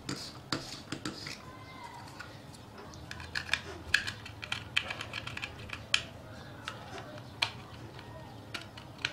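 Small screwdriver tip scratching and clicking on an LED bulb's circuit board, scraping clean the pad of a faulty LED before it is soldered. The irregular ticks and scrapes come thickest a few seconds in.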